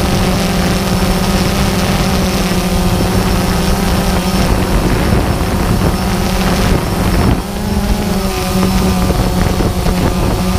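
Quadcopter drone's motors and propellers running with a steady hum, heard from the camera on board, with a brief dip and a change in pitch about seven seconds in.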